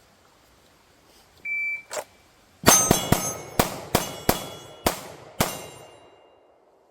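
Shot timer beeps once, then a rapid string of pistol shots comes over about three seconds. Steel targets ring and clang as they are hit.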